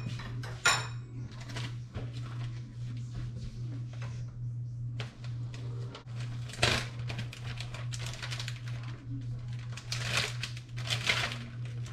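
Household handling sounds: light rustling, crinkling and clicks, with a few louder brief scrapes or clatters, over a steady low hum.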